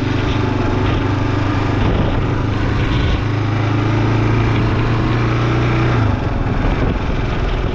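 Motorcycle engine running at a steady road speed, over tyre and road noise from the wet pavement. The engine's steady hum drops away about six seconds in.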